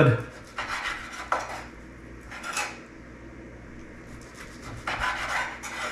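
A knife and serving utensils scraping and clinking against a cutting board and dishes in about five short bursts as sliced meat is portioned out.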